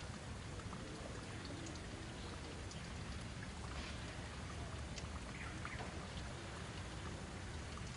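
Steady outdoor background hiss with faint, scattered small ticks.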